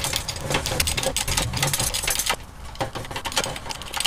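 Hydraulic bottle jack on a Harbor Freight shop press being pumped with its bar handle, a quick run of metallic clicks and rattles that thins out after about two seconds, as the press drives a rear axle shaft into its bearing and outer retainer.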